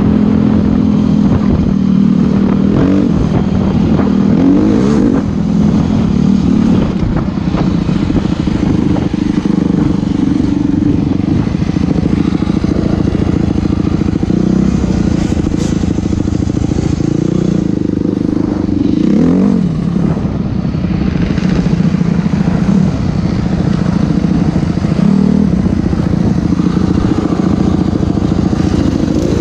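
Enduro motorcycle engine running under way, its pitch rising and falling with the throttle, with short revs a few times.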